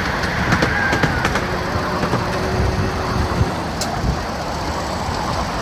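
Steady rumble of a miniature ride-on train running along its track, with a few sharp clicks.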